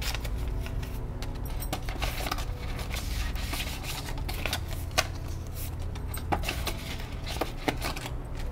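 Paper banknotes rustling and crinkling as they are handled and tucked into a cash envelope, with scattered clicks and taps from the binder's envelope pages being turned. One click about five seconds in is louder than the rest, over a low steady hum.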